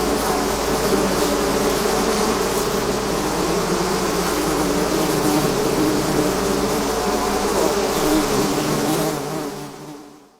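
A swarm of bees buzzing, many wingbeat tones overlapping into a dense, steady drone that fades out near the end.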